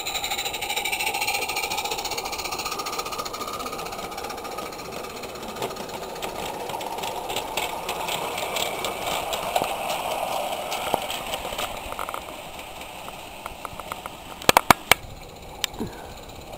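Roundhouse Elsa live-steam locomotive chuffing fast through its Summerlands chuffer as it passes, with small wagons rattling along the track, fading away after about twelve seconds. A few sharp clicks near the end.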